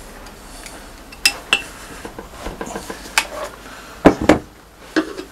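Sharp metal clinks and knocks as a lapped poppet valve is drawn out of the diesel's cylinder head and handled for inspection. A handful of separate strikes, the loudest two close together about four seconds in.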